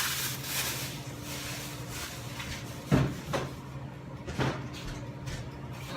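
A few sharp knocks of kitchen handling, like a cupboard or door shutting, about three seconds in, again just after, and once more about four and a half seconds in, over a steady low hum.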